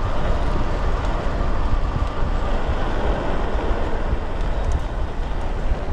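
Wind buffeting the action camera's microphone while riding an electric bike at speed: a steady, heavy rumble.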